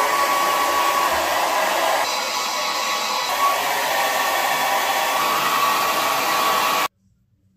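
Handheld hair dryer blowing steadily, a rush of air with a faint steady whine, drying long wet hair; it cuts off abruptly near the end.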